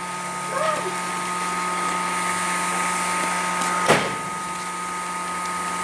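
Bubble volcano machine's small electric motor and fan running steadily with a hum and a whine, with one sharp click about four seconds in.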